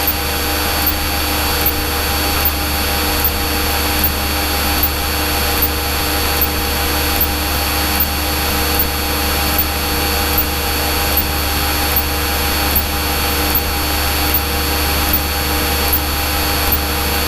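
Steady drone of a Cessna's piston engine and propeller heard inside the cabin, with a faint regular pulse a little over once a second.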